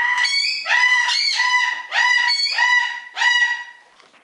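A pet parrot calling about six times in a row, each call rising quickly and then held on one pitch, the calls fading out near the end.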